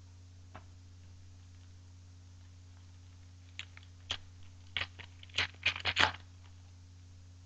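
Hockey trading cards handled by hand: a single click, then a cluster of short crackles and rustles of card stock and pack, loudest about six seconds in, over a steady low hum.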